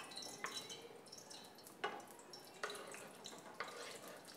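Faint scrapes and taps of a fork pushing chopped pork off a wooden cutting board into a frying pan of hot fat, a handful of separate strokes about a second apart.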